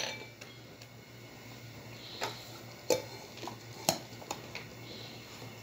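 A few light clinks and knocks at an aluminium cooking pot while dried limes are added to the simmering stew, three sharper ones in the middle, over a faint steady low hum.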